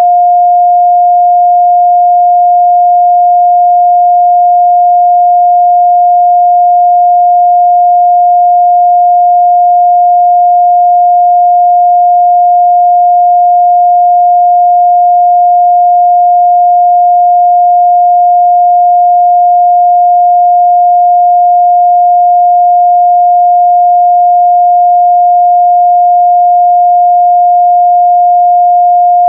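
A steady 708 Hz sine-wave test tone, one pure pitch held without change.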